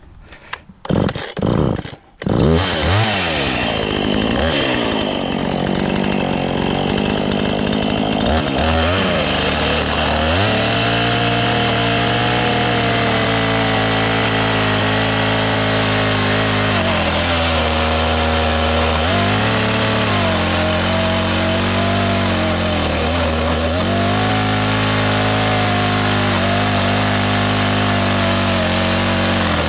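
Two-stroke Husqvarna chainsaw sputtering a few times in the first two seconds, then catching and running continuously. From about ten seconds in, its engine pitch drops and recovers repeatedly as it cuts into a dead elm trunk with a dull chain.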